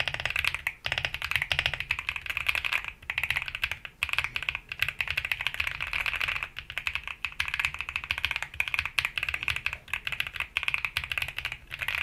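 Fast, continuous typing on a mechanical keyboard with Akko Cream Blue V3 tactile switches, a steady stream of key clacks with a few brief pauses.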